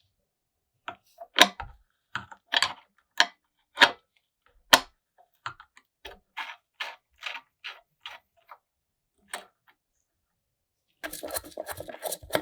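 Workshop handling of small parts and tools: a series of separate sharp clicks and knocks, then a fast run of clattering and rattling near the end.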